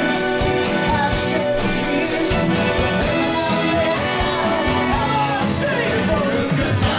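Upbeat band music with guitar, a steady beat and a singing voice.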